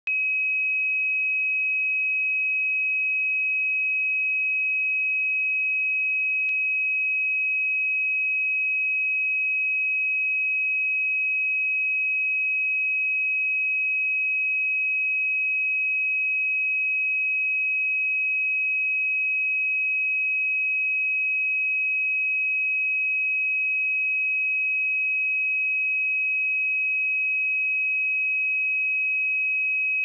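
Pure sine-wave test tone at 2545 Hz, one steady, unwavering note.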